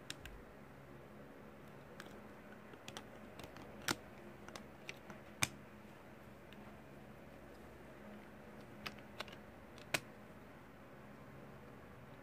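Plastic Lego pieces being handled and pressed into place: a dozen or so irregular sharp clicks, a few of them louder than the rest, over faint room hum.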